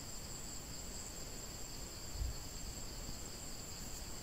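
Field insects shrilling steadily, a continuous high-pitched drone, with a soft low thump about two seconds in.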